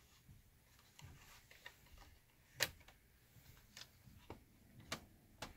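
Faint, irregular small clicks and taps, about ten of them, unevenly spaced, with one sharper click a little before halfway.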